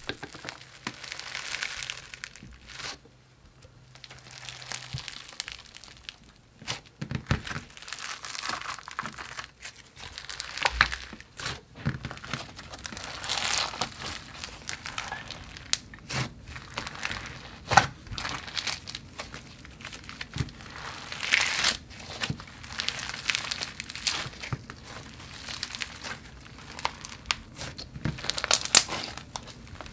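Hands squeezing and kneading foam-bead slime: green foam beads pressed into thick white slime and soft brown clay. The beads give a crackling, crinkling noise that comes in waves with each squeeze, with a few sharp pops.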